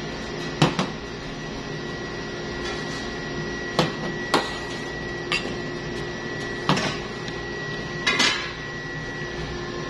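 Small glass bowls knocking and clinking as they are handled and set down on a stainless steel counter: about seven sharp knocks spread through, some in quick pairs, over a steady background hum.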